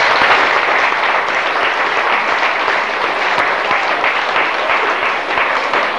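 Audience applauding, a steady clatter of clapping that eases off slightly toward the end.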